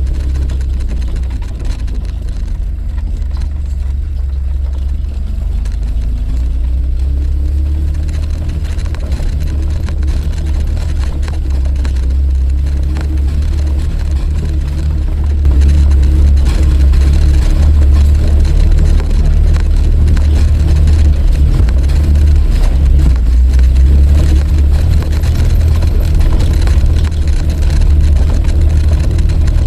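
Suzuki Jimny under way: a steady low engine and road rumble that gets louder about halfway through.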